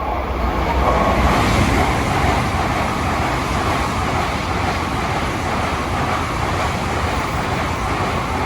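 Train running along the rails: a steady rolling rumble that builds in the first second and then holds.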